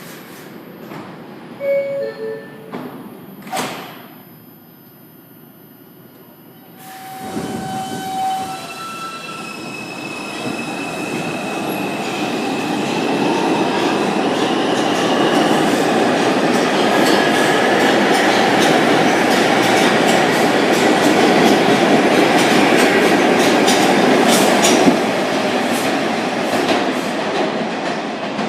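New York City Subway R142 train departing: a two-tone door chime and the doors closing. Then the train pulls out with its traction motors whining, rising in pitch as it speeds up. The run noise grows loud as the train passes, with wheels clacking over rail joints, then eases near the end.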